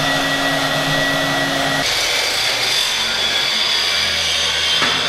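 A portable band saw running as it cuts through steel, then, abruptly about two seconds in, an angle grinder running against steel with a steady, hissing grind.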